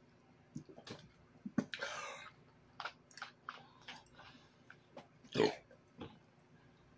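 Mouth sounds after a swig of soda from a plastic bottle: swallowing and lip-smacking clicks, a breathy exhale about two seconds in, then a loud burp about five and a half seconds in.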